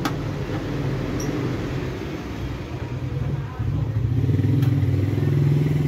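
A motor vehicle engine running steadily, growing louder about halfway through.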